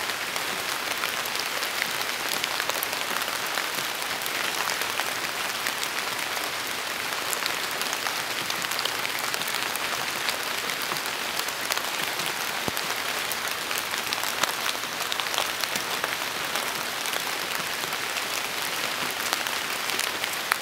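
Steady rain falling on and through an oak tree's leaves, a dense even patter with many separate drips and drop hits scattered throughout.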